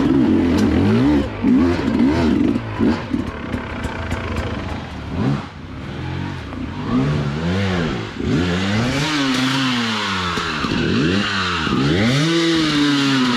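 Dirt bike engine revving in repeated blips. High and wavering at first, with scattered clicks and knocks, then in the second half rising and falling in pitch about once a second.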